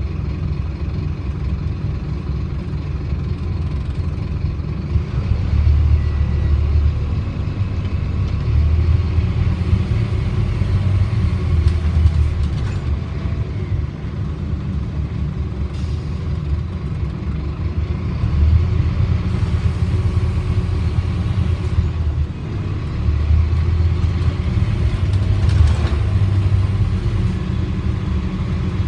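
Scania Omnidekka double-decker bus's diesel engine heard from inside the passenger saloon while the bus drives. A steady low rumble swells three times as the bus pulls away and accelerates, with a faint rattle of the body above it.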